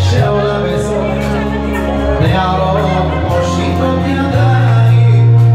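A man singing a Hebrew pop song into a microphone over a loud karaoke-style backing track with sustained bass notes. The music swells a little about four seconds in.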